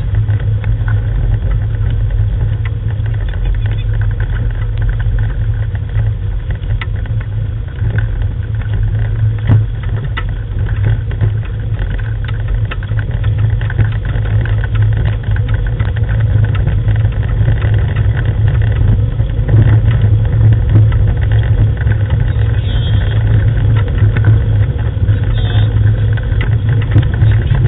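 Steady low rumble of the dog team's rig rolling along a gravel track, with many small crunches and rattles from the wheels on the stones.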